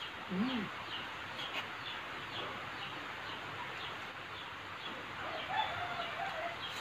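Faint bird calls over a steady hiss: a run of short high chirps, and a longer wavering call about five seconds in. A brief low hum comes about half a second in.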